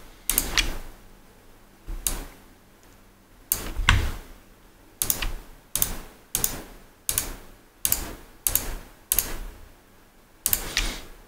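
About eleven sharp clicks from a computer mouse and keyboard, spaced a second or more apart at first, then in a steady run about every 0.7 s through the middle.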